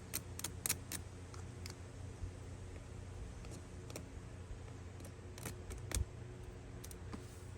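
A run of sharp clicks and snips from hand tools working the freshly cut end of a plastic water line, several quick ones in the first second and a few scattered ones later.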